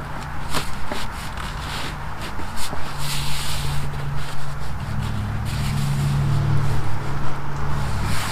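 Rustling, shuffling and scraping as a fabric tire cover is pulled over a camper trailer's wheel, with footsteps and a few short clicks, over a steady low hum that grows stronger about five seconds in.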